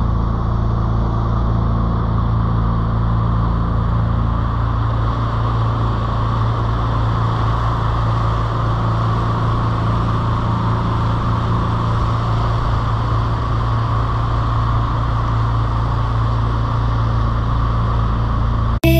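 Outboard motor of a small speedboat running steadily at speed, with water rushing along the hull and wind on the microphone.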